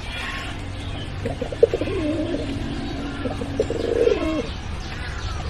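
Domestic pigeon cooing: one drawn-out, wavering coo starting about a second in and lasting about three seconds.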